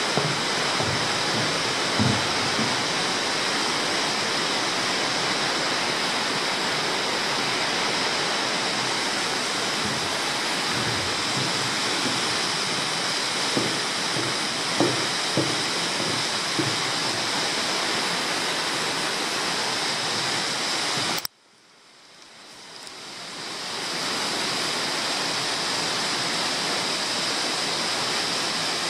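Steady rush of flowing water inside a cave, with a few soft thumps in the first half. About two-thirds of the way through the sound cuts out suddenly and fades back in over a few seconds.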